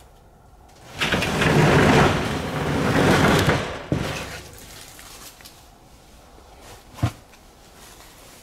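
Old wooden sliding shed door rumbling along its track for about three seconds, ending with a sharp knock as it stops; another short knock comes a few seconds later.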